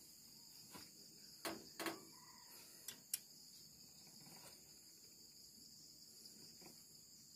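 A few sharp metallic clicks and knocks from a hand wrench against metal: two close together about a second and a half in, and two more around three seconds. Faint steady cricket chirring sits behind them.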